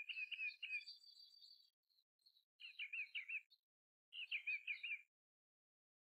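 Belted kingfisher calling: three short rattles of fast repeated notes, each lasting about a second, with a thin high note and a few faint chirps in between.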